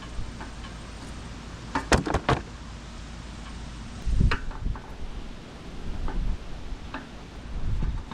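Scattered knocks and clatter of parts and tools being handled: a quick run of three or four knocks about two seconds in, another about four seconds in, and fainter ones near the end.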